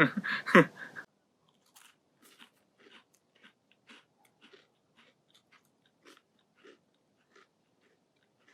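Graham crackers being bitten and chewed, a faint dry crunch about twice a second.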